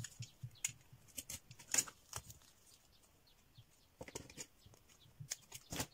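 Light scattered rustles and small taps of paper and double-sided tape being handled and cut with a snap-off utility knife on a cutting mat, with a sharper click near the end.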